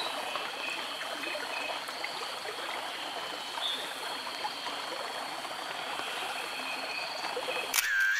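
A stream running steadily, an even rush of water. Near the end, a camera shutter starts clicking in quick succession.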